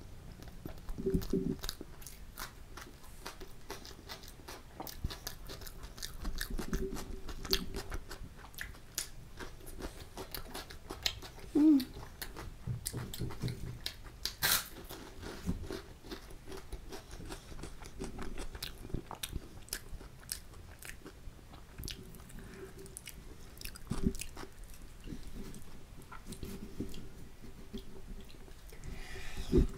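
Close-miked chewing and mouth sounds of a person eating chole kulche, with many small wet clicks throughout. About halfway through there is one loud, crisp crunch from a fried sabudana papad.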